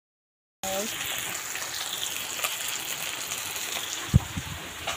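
Small spiced fish frying in hot oil in a wok, a steady sizzling hiss that starts abruptly after about half a second of silence. A brief voice fragment comes just as it starts, and a single dull thump about four seconds in.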